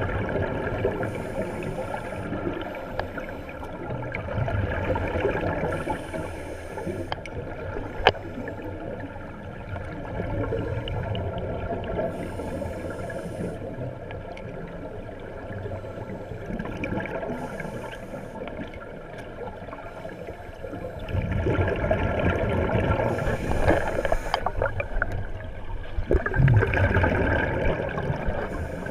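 Muffled underwater sound recorded beneath the surface: a steady rushing of water with scuba divers' regulator exhaust bubbles swelling and fading, louder near the end.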